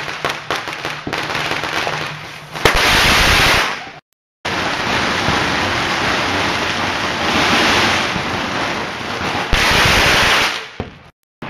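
Fireworks going off. A rapid run of firecracker cracks near the start gives way to long, loud hissing and spraying from burning fireworks, broken by a brief silent gap about four seconds in.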